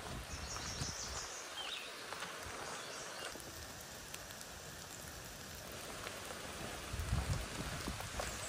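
Steady rain falling on the forest leaves and the river, a constant hiss. A few short high chirps sound in the first two seconds, and several low thuds of footsteps on the trail come near the end.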